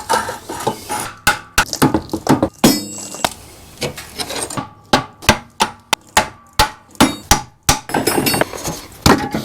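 Hammer blows on metal, a quick irregular series of strikes, some with a short ringing, as the seized stator cover of a 1987 Suzuki QuadRunner 250 ATV engine is knocked loose.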